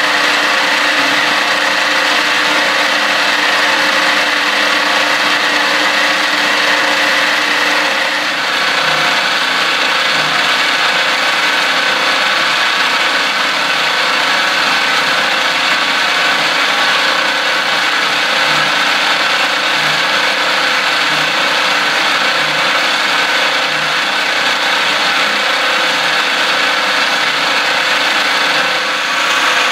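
CNC milling machine's end mill cutting slots into an aluminium 1911 .22 pistol slide under flood coolant: a steady spindle whine over dense cutting noise. The sound shifts slightly about eight seconds in.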